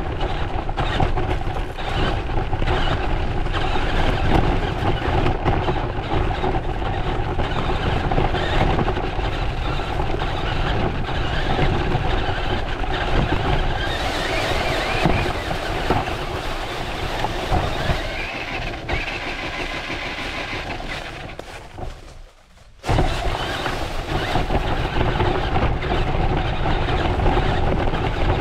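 RC monster truck driving over a trail of dry leaves, its motor and drivetrain whining steadily under the noise of the tyres on the leaves, with the pitch rising as it speeds up. The sound cuts out almost completely for about a second near the end, then comes back suddenly.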